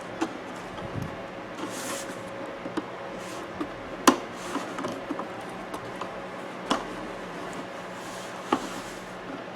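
A plastic clock facing being worked loose from the clock: light rubbing and handling with a few sharp plastic clicks, the loudest about four seconds in.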